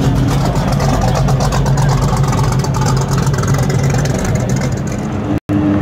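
Plymouth 'Cuda's V8 running at low revs with a steady, pulsing exhaust as the car rolls slowly past. A brief dropout near the end, then another engine's steadier, higher hum.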